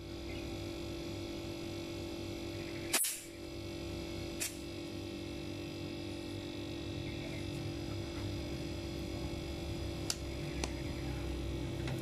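Two hermetic refrigerator compressors running together with a steady hum, pumping against a discharge pipe held shut by a finger to test their compression. A few sharp clicks break in, the loudest about three seconds in.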